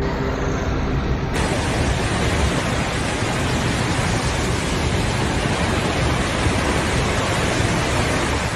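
Loud, steady rushing noise with no tone or rhythm; just over a second in it turns brighter and hissier.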